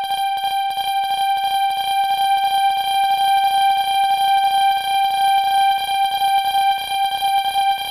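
Level-crossing warning alarm ringing: a steady high ringing tone struck over and over in a fast even rhythm, about five strokes a second.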